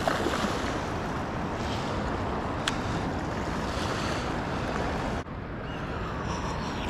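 Wind on the microphone over small waves washing on a sandy shore, a steady rushing noise with one sharp click about two and a half seconds in. The sound drops abruptly and becomes duller a little after five seconds.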